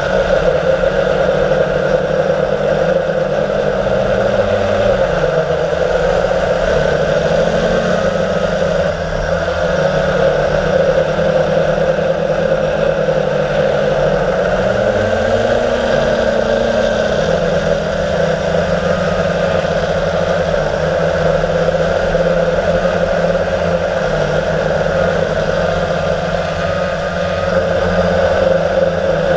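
Blade 350QX quadcopter's electric motors and propellers whirring steadily, heard close up from the GoPro mounted on the airframe. The pitch dips and recovers twice, about five seconds in and again about fifteen seconds in, as the motor speed changes.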